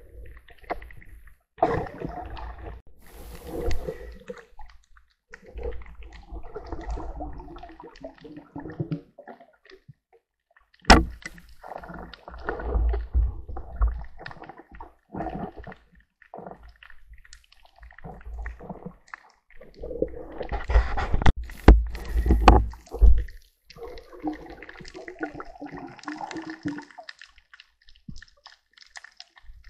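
Water gurgling and sloshing around an underwater camera in irregular bursts of a second or more, with a few sharp knocks, the loudest about eleven seconds in and a cluster around twenty-one to twenty-three seconds.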